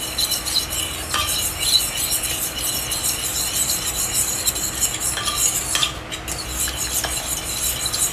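A metal spoon stirring a soupy mix of chicken broth, mashed squash and egg in a pot, a steady swishing and scraping with a few light clinks against the pot.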